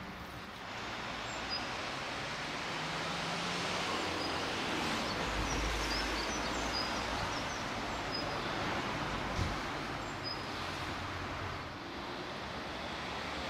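Steady outdoor hiss of distant city traffic, with faint, short, high songbird chirps now and then. A low rumble comes up for a couple of seconds around the middle.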